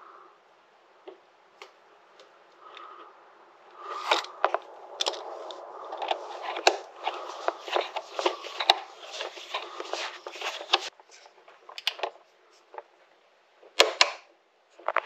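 Small hard objects clicking, tapping and rattling in a dense irregular run, then a single sharp click near the end, typical of hand tools and small metal parts being handled during work.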